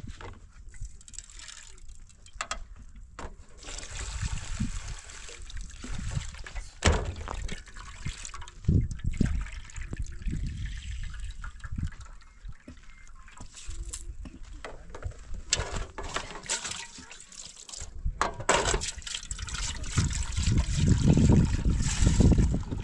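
Water splashing and trickling in metal bowls as they are washed by hand, with scattered clinks and scrapes of metal. Near the end, water is poured from a bowl into a metal pot.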